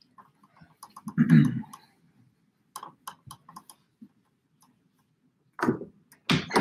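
Whiteboard eraser being wiped across a whiteboard: scattered short taps and rubbing strokes with a dull thump about a second in, then a couple of sharper knocks near the end as the eraser and marker are handled at the board's tray.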